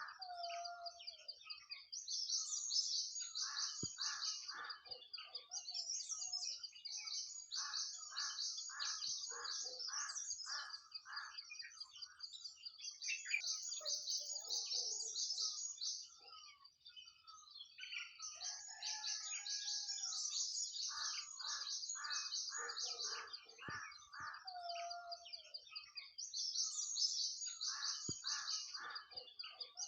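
Nightingale singing: runs of rapidly repeated notes and a few lower whistled notes, over a steady high-pitched chatter, with a short pause about halfway through.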